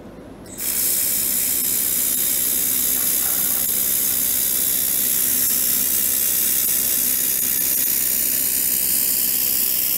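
1.5 kW handheld laser welder welding a seam on a stainless steel tube: a steady hiss of the weld and its shielding gas, starting about half a second in.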